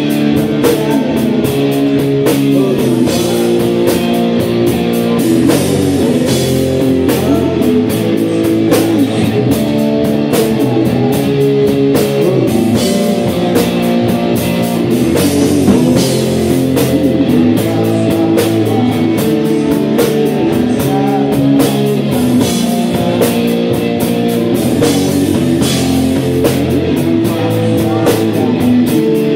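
A live rock band: electric guitar chords over a drum kit driving a steady beat, with frequent cymbal hits.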